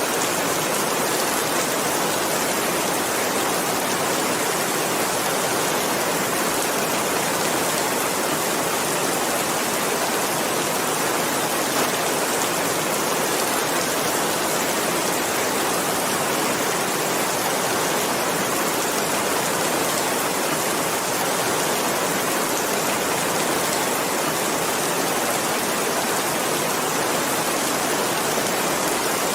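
Steady rain, an even, unbroken hiss with no single drops standing out.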